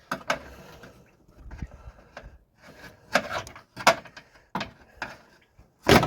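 Small pry bar knocking and scraping against a transmission cooler hard line while prying the rubber cooler hose off it: a string of separate sharp metal clinks and scrapes, the loudest knock near the end.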